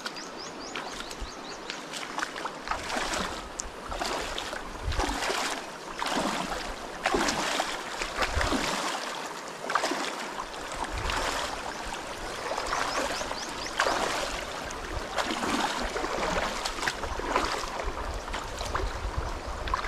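A person wading through a shallow, stony river: water sloshing and splashing with each step, about one step a second.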